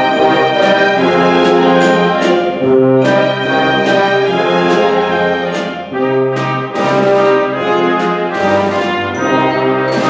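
Full symphony orchestra playing a Hanukkah medley, with the brass (trumpets and trombones) to the fore over strings and sharp percussion strikes every second or so.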